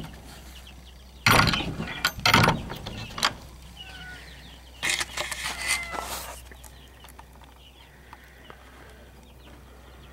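Young chickens cheeping faintly in a coop, broken by two loud short rustling bursts in the first few seconds and a longer noisy stretch near the middle.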